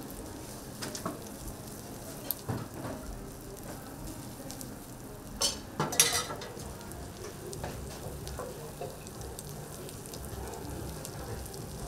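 Food sizzling in a frying pan while it is stirred, with scattered clacks of a utensil against the pan and two sharper knocks about five and a half and six seconds in.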